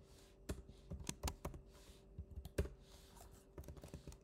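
Typing on a computer keyboard: quiet, irregular key clicks in short bursts, with a pause around the middle, as a line of code is entered.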